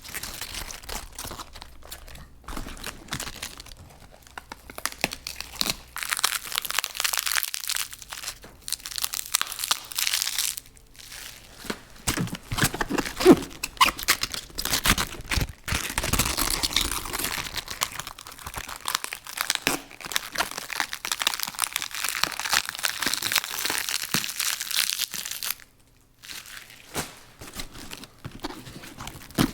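Leaves being peeled and torn from a head of lettuce: crisp, crackling tearing and snapping in irregular stretches, with short pauses between leaves.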